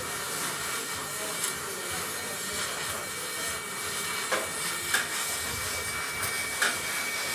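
Hand-held gas torch flame hissing steadily against an aluminium wheel rim while a metal rod is heated in the flame, with a thin steady high tone through it and a few faint clicks in the second half.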